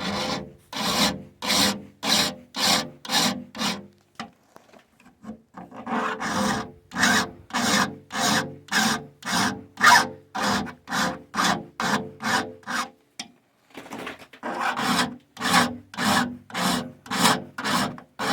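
Hand file rasping across the steel teeth of a sawmill saw blade in steady back-and-forth strokes, about two a second, with two short pauses, one about four seconds in and one near the end, and a faint metallic ring from the blade under the strokes.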